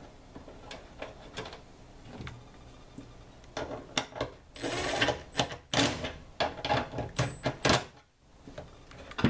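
Rapid clicks, knocks and rattles of a tailgate lock being worked into place in a truck tailgate: faint at first, then a dense burst of loud clicks with a short scrape over a few seconds before it stops.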